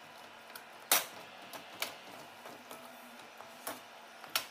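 Metal spatula clinking and scraping against a metal kadai while stirring sticky chopped dates in ghee: a few sharp clicks, the loudest about a second in, over a faint steady background.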